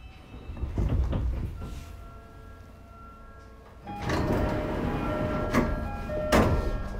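Sliding passenger doors of a Sotetsu 11000 series train car working at a station stop: a thump about a second in, then a louder clatter from about four seconds with two sharp knocks near the end as the doors shut.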